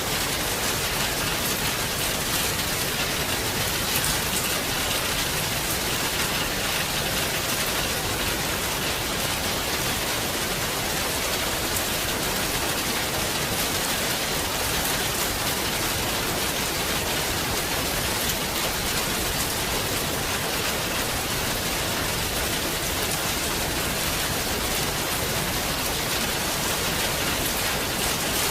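Heavy rain falling steadily, a dense even hiss of drops with no letup.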